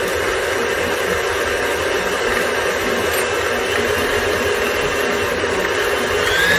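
Electric stand mixer running steadily, its motor and beater working batter of creamed butter, sugar and eggs in the steel bowl.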